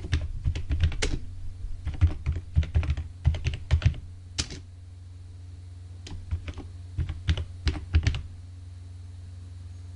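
Typing on a computer keyboard in two runs of keystrokes: a long run over the first four seconds or so, and a shorter one from about six to eight seconds in. A steady low hum runs underneath.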